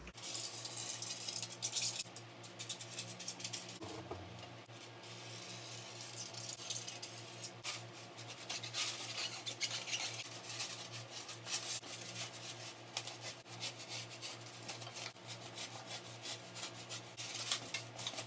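Pen and utility knife scratching and scraping on styrofoam sheets as a circle is marked and cut out: a dense run of quick scratchy clicks and rubs, over a steady low hum.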